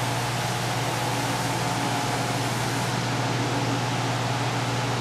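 Hardinge HLV-H toolroom lathe running under power: a steady low hum with an even whirring noise over it.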